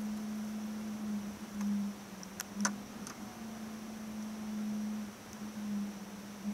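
A steady low hum on a single tone, swelling and dipping slightly in loudness, with a couple of faint clicks about two and a half seconds in.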